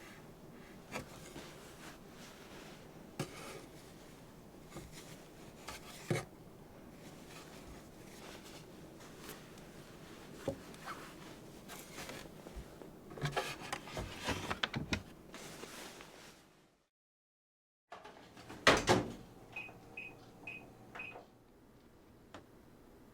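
Kitchen handling sounds: scattered small clicks, taps and rustles, busier about two-thirds of the way through. After a brief break, one loud knock, then four short electronic beeps of the same pitch from a kitchen appliance.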